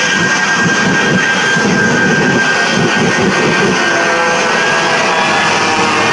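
Jet truck's jet engines running at high power with the afterburners lit: a loud, steady rushing blast with a high whine that sags slightly in pitch.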